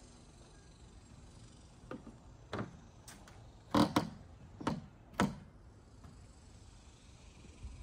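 A handful of short, sharp knocks or thumps at irregular spacing, the loudest two in quick succession near the middle, over faint outdoor background.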